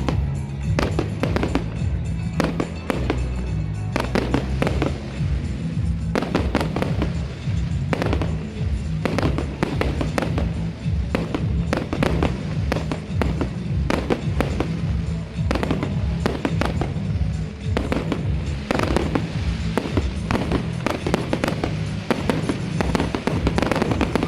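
Fireworks display: a dense, irregular string of bangs and crackles from bursting shells, several each second throughout, with music playing underneath.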